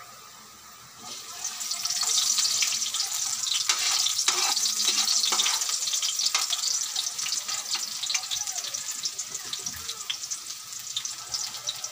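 Chopped onion hitting hot oil and garlic in an aluminium wok: a loud frying sizzle breaks out about a second in, full of crackles, while the onion is stirred with a metal ladle.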